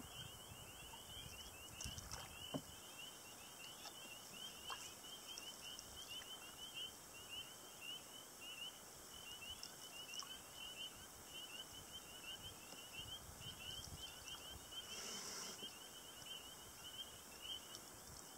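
Faint, continuous chorus of rapid, high chirping calls from animals in the marsh, with a couple of soft knocks about two seconds in.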